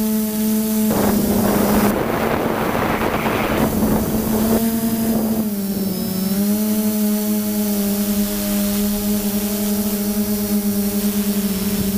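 Electric motors and propellers of a multirotor drone in flight, heard close from a camera mounted on the aircraft: a steady droning hum whose pitch dips and recovers about six seconds in as the throttle changes. Rushes of wind on the microphone cover it between about one and three and a half seconds in.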